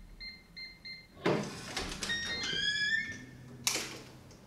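Electronic door lock being opened: a few evenly spaced keypad beeps, a sharp clunk as the bolt draws back, then the lock's short chime of rising tones, and a second loud knock as the door swings open.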